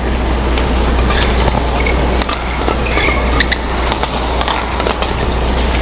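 Badminton rally: sharp clicks of rackets striking the shuttlecock and short squeaks of court shoes, over steady hall noise with a low hum.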